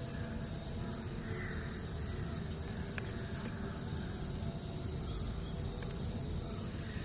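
Insects chirring steadily at a high pitch, as a continuous outdoor drone.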